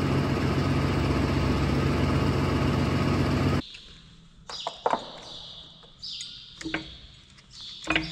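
Tractor engine running steadily, cut off abruptly about three and a half seconds in. After that it is much quieter: small birds chirping and a few sharp metal clicks of a spanner working on a bolt.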